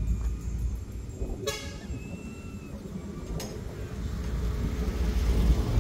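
Steady low rumble of a motor vehicle engine that grows louder toward the end, with one short high toot about a second and a half in.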